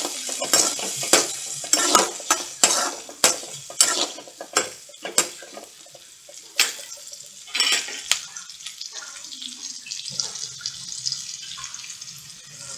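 A perforated metal spatula scraping and knocking against a metal kadai as shallots, garlic and curry leaves are stir-fried in hot oil, with sizzling. The scrapes come thick and fast at first, then thin out about halfway through, leaving a quieter sizzle.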